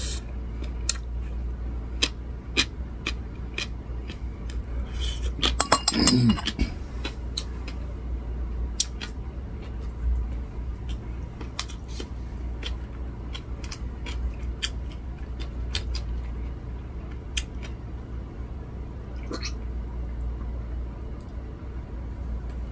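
Metal chopsticks clicking and tapping against a glass food container as food is picked up, with scattered clicks and a brief louder clatter about six seconds in, over a steady low hum.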